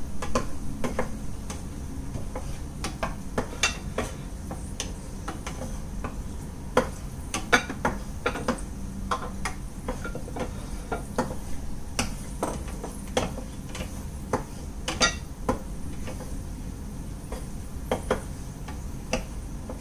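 Wooden spatula stirring cashew nuts frying in ghee in a frying pan: irregular knocks and scrapes of the spatula and nuts against the pan, over a low steady hum.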